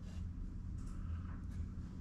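A steady low background hum, with faint soft rustling from hands handling loose rod-wrapping thread.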